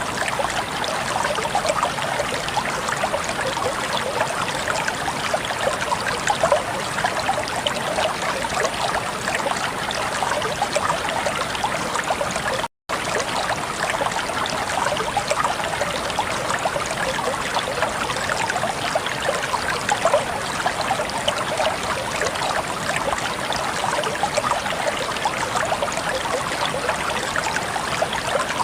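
Flowing water running steadily, with a dense patter of small splashes and trickles. The sound drops out for an instant about halfway through.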